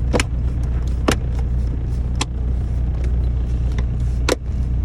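Sharp clicks of plastic centre console trim being handled and snapped back into place around the shifter, four in all, over a steady low hum.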